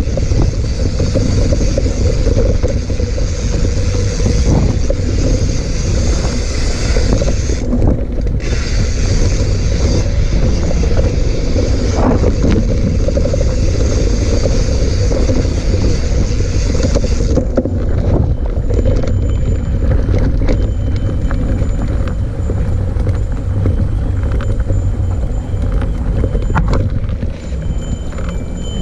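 Mountain bike descending a dirt trail: tyres rattling and scraping over the ground, with wind rumbling on the microphone. The hiss thins out about two-thirds of the way through.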